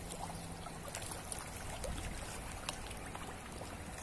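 Water trickling steadily at a fish pond, with scattered faint ticks.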